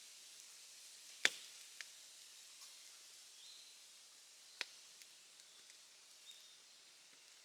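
Wood fire crackling, with a few sharp pops over a faint steady hiss; the loudest pop comes about a second in, another a little past halfway.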